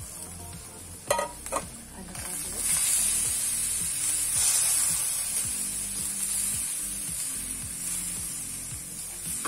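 Raw rice sizzling in hot oil in a stainless steel wok while a metal spatula stirs and turns it. Two sharp knocks about a second in, then steady sizzling that swells as the rice is stirred.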